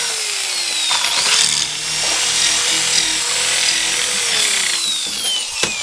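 Corded electric drill turning a twist bit inside a chair's dowel hole, reaming out the old glue down to raw wood, with the bit scraping in the wood. The motor's whine drops in pitch twice as it slows, and a sharp click comes near the end.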